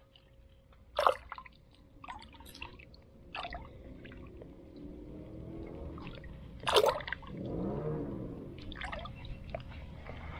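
Water splashing and dripping as hands pull fishing line through shallow water, in small irregular splashes with a sharper splash about a second in and another near seven seconds.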